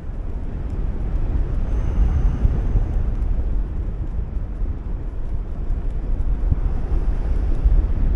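Wind buffeting the microphone in flight under a paraglider: a steady, fluttering low rumble.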